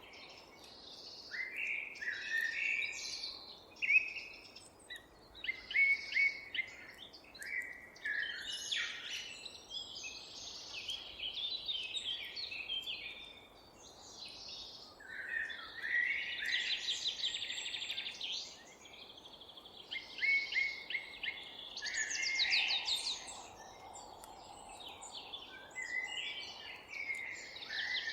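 Several songbirds singing at once, a busy mix of chirps, trills and warbling phrases, over a faint steady background hum.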